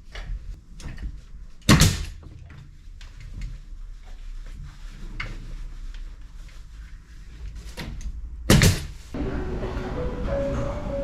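Light clattering and handling noises with two loud sharp knocks, one about two seconds in and another about eight and a half seconds in. Background music comes in near the end.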